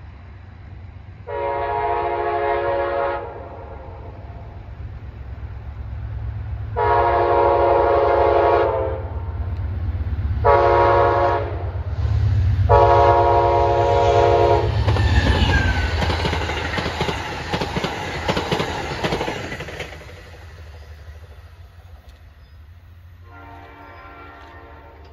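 Locomotive air horn sounding the grade-crossing signal, long, long, short, long, over the low rumble of the approaching train. The train then passes loudly with clickety-clack of wheels over rail joints, which fades away. One more horn blast comes near the end.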